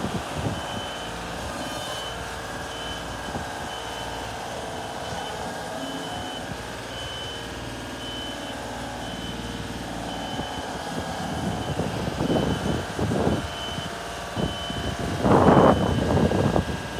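Genie S-60 boom lift's motion alarm beeping a little more than once a second as the machine moves, over its Deutz diesel engine running steadily. Louder rushes of noise come in near the end.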